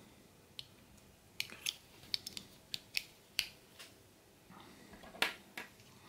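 Sharp metal clicks and taps of Leatherman multitools being handled, the stainless handles swung open into pliers. About ten separate clicks are scattered through, the loudest about five seconds in.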